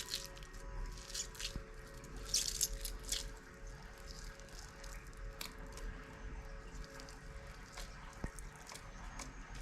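Slime being squished and worked by hand, making wet clicks and small pops, thickest in the first three seconds and sparser after.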